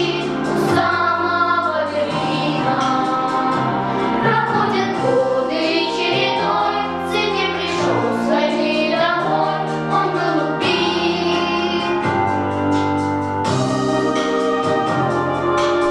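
A group of young girls singing a song together over an instrumental backing track with held bass and keyboard notes.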